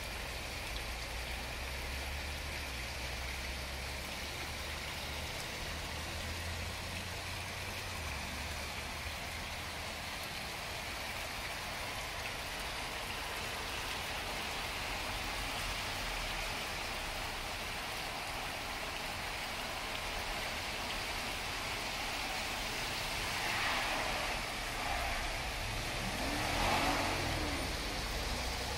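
Steady rain falling on a garden pond and the plants around it, mixed with the splash of the pond's bubbler. The sound swells louder a few times near the end.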